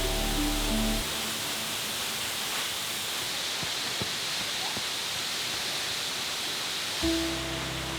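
Steady rushing noise of a waterfall. Background music cuts out about a second in and comes back near the end.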